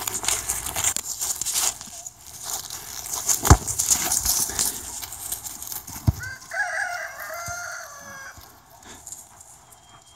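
Scuffling, hoof and paw steps on grass as a zebu bull calf and a Doberman play with a soccer ball, with a sharp thump about three and a half seconds in and another just after six seconds. A rooster crows in the background for about a second and a half starting around six and a half seconds in.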